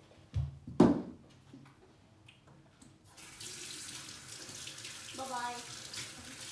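A dull thump and a short loud knock near the start, then a water tap turned on about three seconds in, running steadily into a sink.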